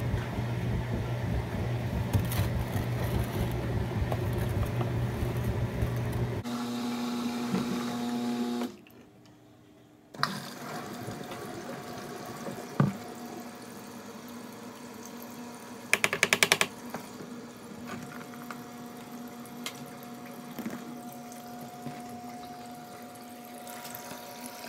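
Top-loading washing machine running, a steady hum with water noise. The louder part stops about six seconds in, and a quieter steady hum carries on, broken past the middle by a quick rattle of about ten clicks.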